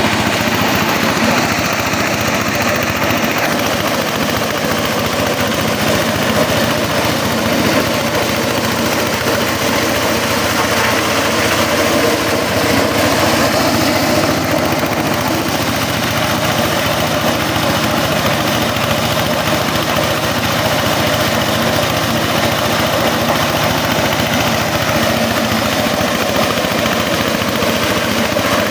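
Jumbo husked-corn sheller with twin blowers running steadily, its engine, threshing drum and fans making a loud, even mechanical noise.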